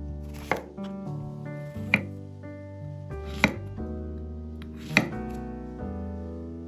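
Kitchen knife chopping a zucchini into rounds on a wooden cutting board: four sharp chops about a second and a half apart, over background piano music.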